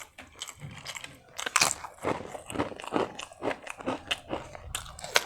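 Close-miked eating: a person biting and chewing crunchy food, a dense irregular run of crisp crunches.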